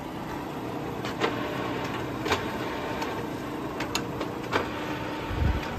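Kearney & Trecker 420 TF-17 universal horizontal milling machine running, its saddle power-feeding in with a steady gear hum. Four sharp clicks are spread through it as the feed levers are worked, and there is a low thump near the end.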